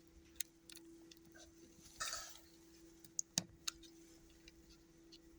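Faint scattered clicks and taps of small plastic parts being handled as a battery plug is fitted to a sat nav's circuit board, with a short rustle about two seconds in.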